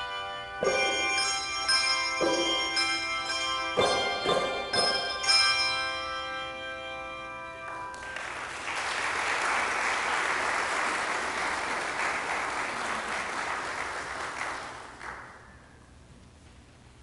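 Handbell choir ringing the closing chords of a piece, several struck chords in the first few seconds ringing on and dying away, followed by audience applause that lasts several seconds and then dies away.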